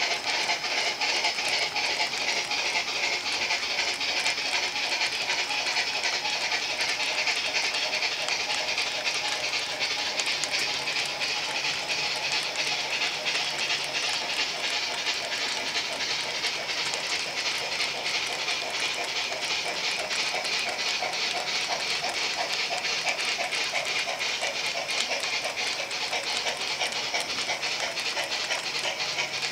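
Model freight cars rolling steadily along the track, their metal wheels giving a continuous run of rapid clicks and rail noise.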